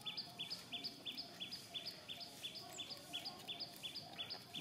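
Steady rhythmic high-pitched chirping from a bird or insect in the background, a two-part chirp repeating evenly about three times a second, over faint outdoor ambience.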